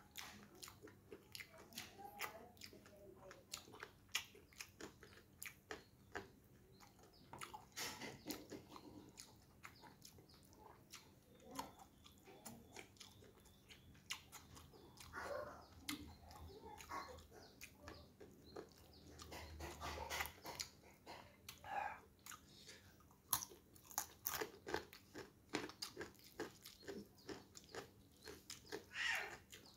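A person chewing and crunching a mouthful of rice, spinach and crispy fried salted fish, with many short, irregular mouth clicks.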